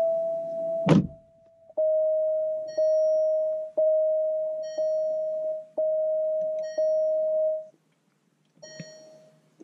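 Alfa Romeo Giulia Quadrifoglio's dashboard warning chime, a steady beep renewed about once a second for several seconds, then stopping, with a thump about a second in. It sounds with the ignition switched on while the cluster shows a string of brake and ABS fault warnings.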